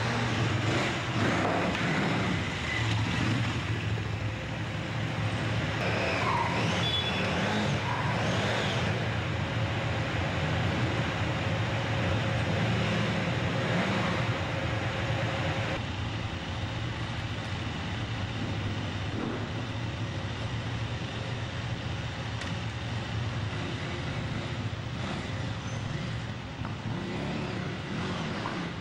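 KTM 950 Adventure motorcycle's V-twin engine running steadily: a low, even drone under a wash of noise. About sixteen seconds in, the higher noise drops away abruptly.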